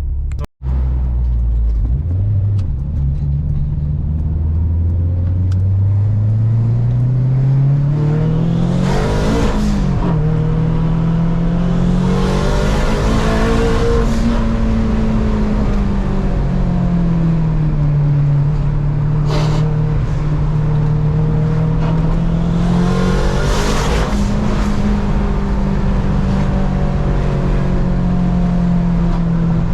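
Turbocharged 8th-generation Honda Civic driving, its engine note climbing steadily for the first several seconds, then rising and falling with the throttle. Several short rushes of hiss come with the engine peaks.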